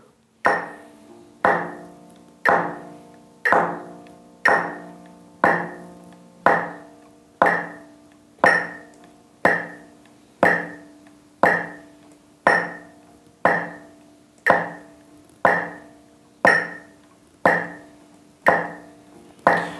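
A metronome ticking at 60 beats per minute, one sharp click a second, with a hand tapping on the guitalele's wooden body on each beat, so the open nylon strings ring faintly between taps.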